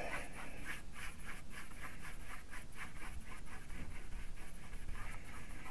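Small paintbrush scrubbing acrylic paint onto black hardboard in quick repeated short strokes, about three or four a second, a faint dry scratching.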